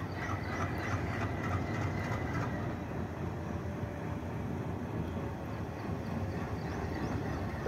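WDM-3D diesel-electric locomotive's ALCO 251 V16 engine running with a steady low rumble as it approaches along the track. The wheels rumble on the rails.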